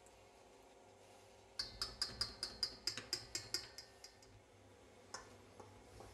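Wire whisk clicking against the side of a stainless steel mixing bowl: a quick even run of about a dozen sharp metallic clicks, about five a second, then a few scattered clicks.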